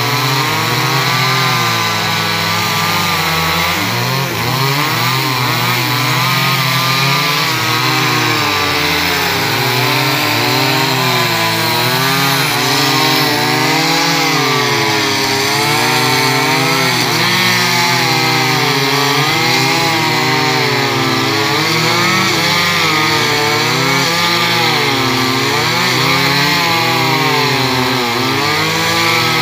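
Chainsaw running loud and steady while cutting into a large teak trunk, its engine pitch rising and falling as the chain bites into the wood.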